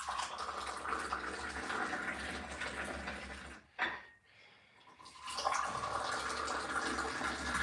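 Tea poured from a height out of a metal Moroccan teapot into a small glass, the stream splashing steadily into the glass. It stops about three and a half seconds in, a brief knock follows, and a second pour starts about a second later.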